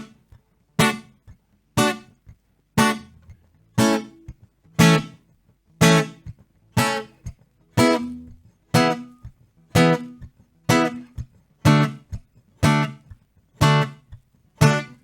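Acoustic guitar playing bar chords as a reggae skank: short, even chord stabs about once a second, each one muted just after it is struck by easing the fretting hand off the strings.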